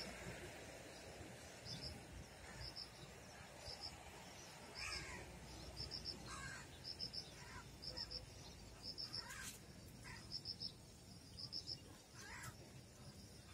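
Faint rhythmic chirping of an insect, short double and triple high pulses repeating about once a second, with a few short bird calls.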